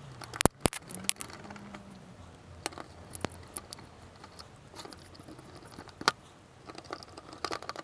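Scattered small clicks and taps of screws and a screwdriver being handled on the charger's plastic case as its screws are put back in, with two sharp clicks about half a second in and others at uneven intervals.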